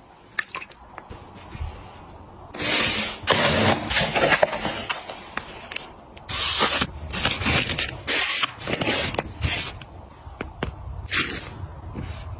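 Food packaging and containers being handled: several long bursts of rustling and scraping, with small clicks and knocks in between.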